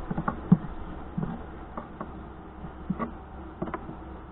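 Wooden beehive frames knocking and clacking together as they are pushed into place by hand: about nine short, irregular taps, the loudest in the first second.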